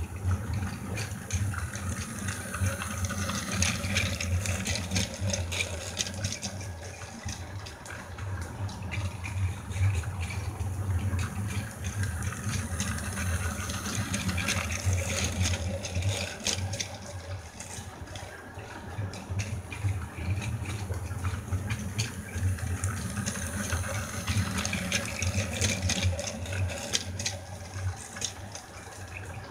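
Small electric motor of a battery-powered toy train whirring steadily as it runs around blue plastic track, with light clicking and rattling from the wheels and cars. It grows louder as the train passes close by, about halfway through, then fades as it moves away.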